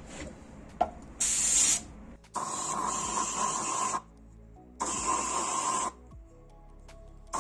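Compressed-air spray gun firing three bursts of spray: a short one about a second in, then two longer ones, each a steady hiss with a whistling tone, cut off sharply. It is spraying enamel onto a cup.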